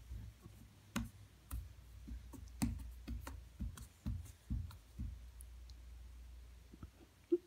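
Baby sucking and swallowing from a plastic sippy cup: soft, irregular clicks and gulps about twice a second that fade out after a few seconds.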